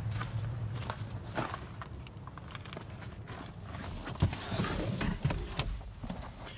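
Footsteps on gravel and scattered knocks and clicks as a person moves around a car and gets into the driver's seat, over a low hum that fades in the first second.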